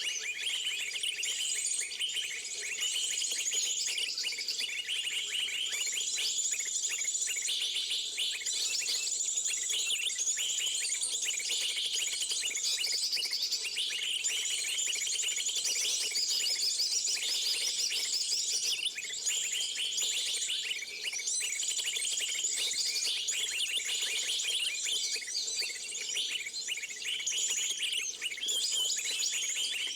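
Many small birds chirping and twittering densely and without pause, a continuous high-pitched chorus.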